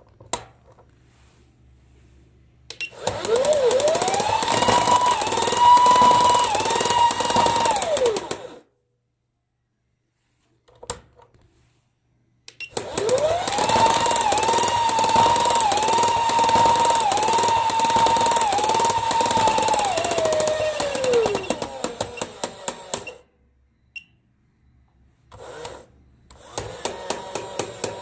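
The small DC motor and plastic gearing of a toy kicking-footballer coin bank, overvolted from a bench power supply at over 22 volts. It whines at high speed over dense gear rattle, spinning up and winding down twice, and its pitch dips briefly a little more than once a second as the mechanism cycles.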